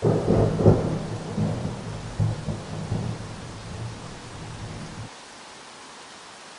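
A thunderclap breaks over steady rain: a sudden loud crack, then a low rolling rumble that fades over about five seconds and stops abruptly. The rain hiss carries on evenly throughout.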